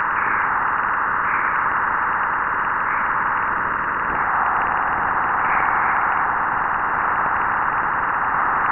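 NASA Juno spacecraft recording of the bow shock at Jupiter, plasma-wave data played back as sound: a steady, even hiss. It is the sign of the supersonic solar wind being slowed and heated as it hits Jupiter's magnetosphere.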